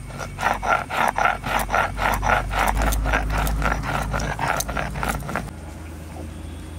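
Stone roller grinding wet red chilli spice paste on a stone slab (sil batta), in quick rhythmic rubbing strokes about four a second that stop about five and a half seconds in.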